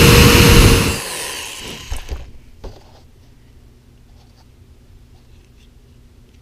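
Power drill running into a small wooden block, then stopping about a second in, followed by a few light clicks and quiet handling of the block.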